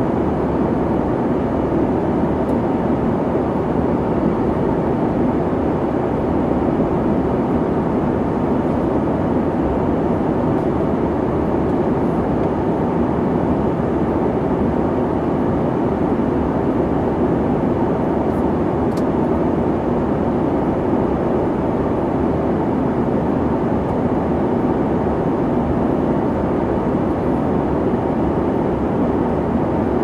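Jet airliner cabin noise: a steady, even rush of engine and air noise, deep and without change.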